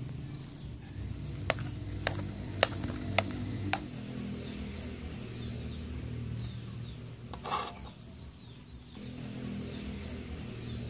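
Steel ladle scooping cooked sticky rice out of a metal pot, knocking against the pot four sharp times over about two seconds starting a second and a half in, with a short scrape about seven and a half seconds in.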